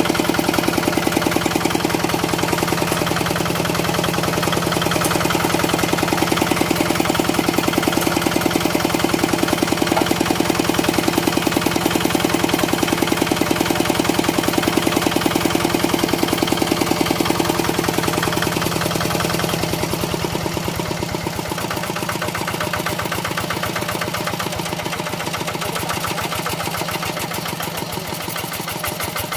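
Quick Impala hand tractor's single-cylinder diesel engine running steadily with a fast, even knocking pulse. About twenty seconds in, the deep hum drops away and it gets a little quieter, leaving the pulse plainer.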